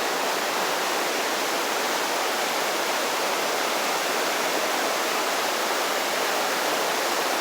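Floodwater of a swollen river rushing in a steady, even roar.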